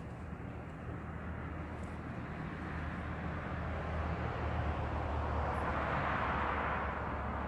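A passing engine's steady rumble, growing louder to a peak about six seconds in and then easing off.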